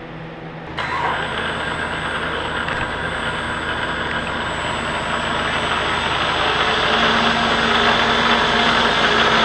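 Milling machine switched on about a second in and running steadily, its motor giving a thin high whine, as it drills out a hole that was filled with weld. The sound grows slightly louder after about seven seconds.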